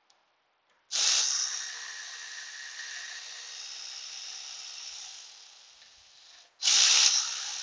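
Air ratchet running twice, a sharp rush of exhaust-air hiss over a steady motor whine, backing out the 10 mm radiator bolts. The first run starts about a second in and fades over about five seconds; the second starts loud near the end.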